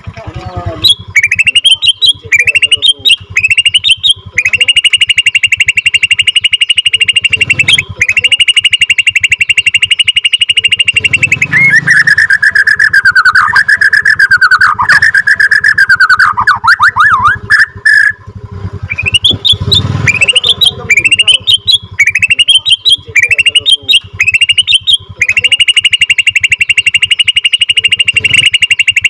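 Borneo white-rumped shama (murai batu) singing loudly. Quick short rising whistles give way to long unbroken rolling trills, the 'ngeroll' that keepers prize. A lower warbling phrase comes in the middle, then more short rising notes, and a long trill again near the end.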